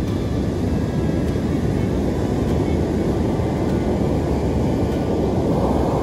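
Heavy surf breaking and washing up a sand beach: a steady rush that swells a little near the end.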